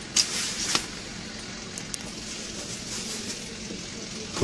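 Car cabin noise: a steady low hum and road noise, with a short hissing rustle about a quarter of a second in and a sharp click at the end.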